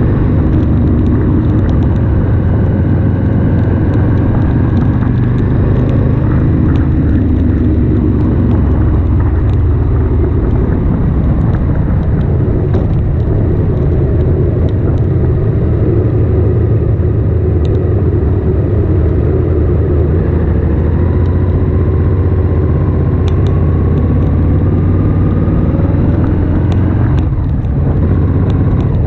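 Ducati Monster S2R's air-cooled L-twin engine running on the move, its pitch rising and falling with the throttle, with a brief drop in level near the end.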